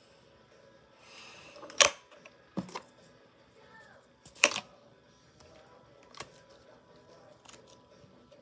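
A scattering of sharp clicks and taps from hands working a lump of clay close to the phone, the loudest about two seconds in and again about four and a half seconds in.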